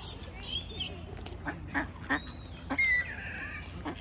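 Ducks quacking in a string of short calls, with higher gliding waterbird calls among them; the loudest call comes about three seconds in.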